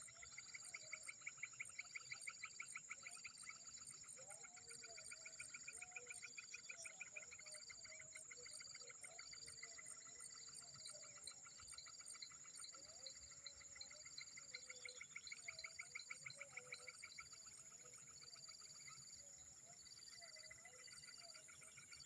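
Insect chorus of a peat swamp: a steady high buzz, rows of short repeated chirps, and a fast pulsing trill that comes and goes in bouts of a few seconds, with faint wavering lower calls underneath.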